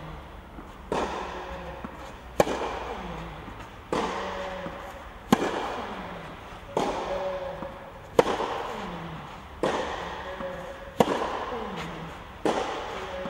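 Tennis ball struck back and forth in a baseline rally on a clay court, nine racket hits about one and a half seconds apart. The nearer player's hits are sharper and louder than the far player's, and each rings on in the echoing covered hall.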